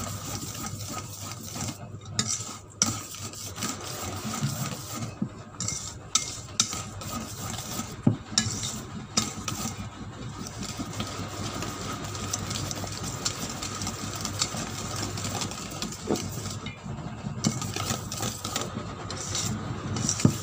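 Wire whisk beating an egg into donut dough by hand in a stainless steel bowl. The wires scrape continuously against the metal, with frequent sharp clinks.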